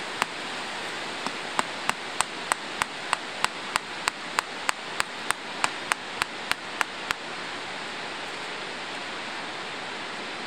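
A tent stake being hammered into the ground: after a short pause, a steady run of sharp strikes, about three a second, that stops about seven seconds in. A steady rushing noise runs underneath.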